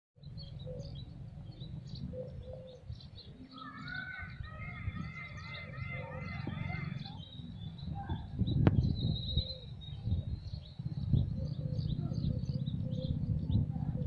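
Many small birds chirping and calling, with a run of repeated rising-and-falling whistled notes between about four and seven seconds in, over a steady low rumble. A sharp knock comes about eight and a half seconds in.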